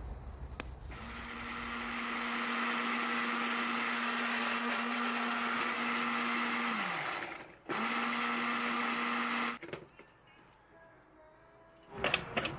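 Electric blender motor running steadily for about six seconds, then winding down as it is switched off. It runs again in a second, shorter burst of about two seconds. A few knocks or clatters follow near the end.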